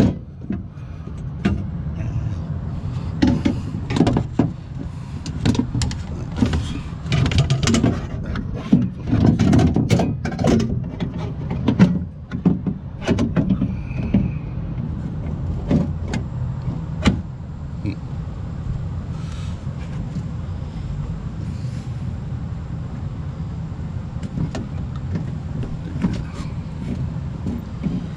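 Clicks and knocks of metal parts and hand tools as a power window regulator and motor are fitted inside a car door, frequent in the first half and then thinning out, over a steady low hum.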